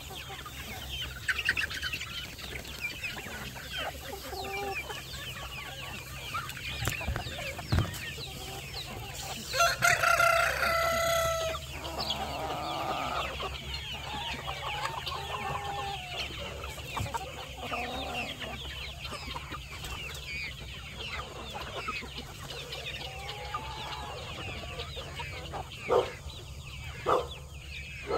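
A flock of chickens clucking and chattering, with a rooster crowing once, loudly, about ten seconds in. Two short, sharp knocks sound near the end.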